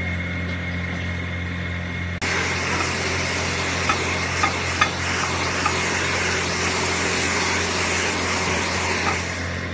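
Hand-held hair dryer running steadily, blowing air through a wig's hair, with a low motor hum under the rush of air. About two seconds in it suddenly gets louder and fuller, and a few faint clicks sound around the middle.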